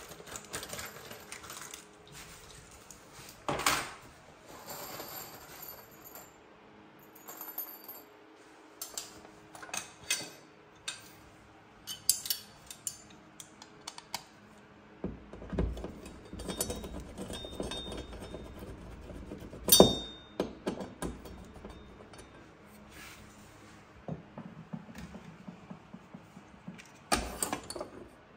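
Small metal parts and tools clinking, tapping and knocking as TV wall-mount hardware is handled, with two louder knocks, one a few seconds in and one just past the middle.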